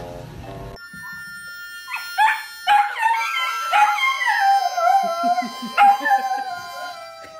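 A dog howling along to a harmonica. The harmonica holds steady chords, and from about two seconds in the dog's long howls glide up and down over them.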